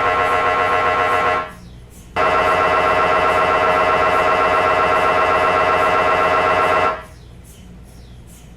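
MRI scanner's gradient coils running a scan sequence: a loud, rapidly pulsing buzz-tone that breaks off about a second and a half in, starts again under a second later, and stops about seven seconds in. After it comes a quieter, regular knocking, a few knocks a second.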